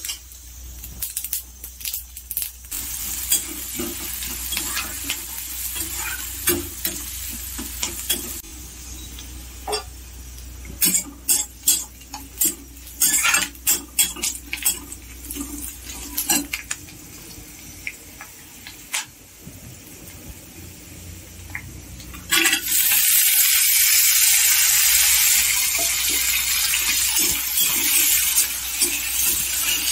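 Onions frying and sizzling in hot oil in a metal kadai, with a metal spatula scraping and clicking against the pan as they are stirred. About two-thirds of the way through, the sizzling jumps suddenly louder and stays loud as green peas go into the pan and fry.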